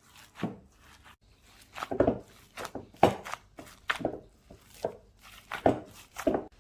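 Hands squashing and punching down raw lamb mince mixed with onion and herbs in a bowl: a run of irregular dull thumps, about one a second, some louder than others.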